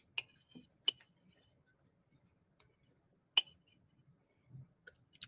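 Metal spoon clinking against a white ceramic bowl of stew while eating: three sharp clinks, the loudest about three and a half seconds in, with a few fainter taps between.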